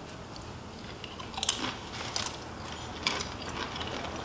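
Crunching and chewing of corn tortilla chips, with a few sharp crunches about one and a half, two and three seconds in.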